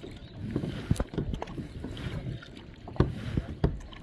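Kayak paddle strokes splashing and dripping in the water, with a few sharp knocks, the loudest about three seconds in.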